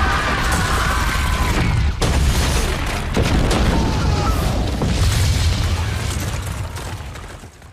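A huge explosion sound effect from a film: a building blowing apart in a continuous deep rumble of blast and falling debris, with a couple of sharp cracks. It fades away over the last couple of seconds.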